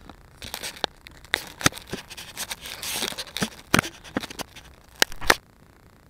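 Dry grass scratching, crackling and scraping right against the camera's microphone as the grounded camera is jostled. It comes as a run of sharp clicks and scratches that stops suddenly about five seconds in.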